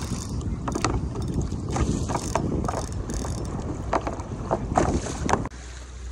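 Choppy sea water slapping and splashing against a Hobie Compass kayak's hull as a hooked fish tows it along, in irregular splashes, with wind buffeting the microphone. The wind rumble drops off suddenly near the end.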